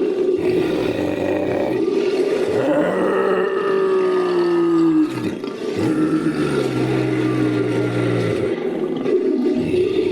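Designed monster roar sound effect, layered from recorded big-cat and bear roars and a human voice. A continuous run of roars with long pitched calls that slide downward in pitch, with a brief break about five seconds in.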